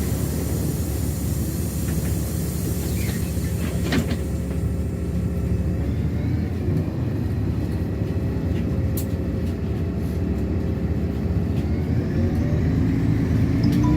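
Cabin noise of a LiAZ-6213.65 articulated city bus on the move: steady engine and road rumble, with a sharp knock or rattle about four seconds in and again later. The rumble grows louder near the end.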